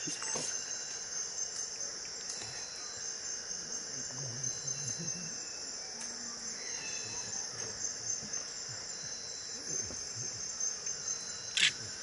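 Steady high-pitched insect chorus from the forest, with a few faint short calls over it and one sharp, louder sound near the end.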